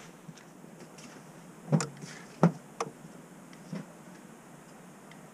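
A few short, sharp clicks and knocks spread over about two seconds, the second one the loudest, from a car door and dashboard switch being worked while the engine is off; a load comes on the battery at this moment.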